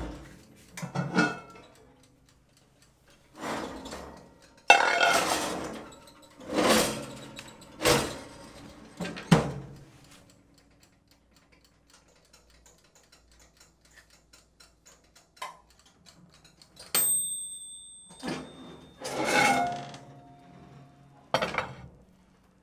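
Kitchenware clattering: a run of sharp knocks and clinks of pots, pans or utensils, several seconds apart, with a quiet stretch in the middle and a brief high ring about two-thirds of the way through.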